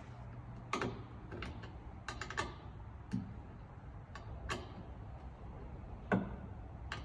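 A 13 mm wrench clicking against a crate bolt as it is fitted and turned by hand to loosen the bolt: about eight short clicks at irregular spacing, the loudest about six seconds in.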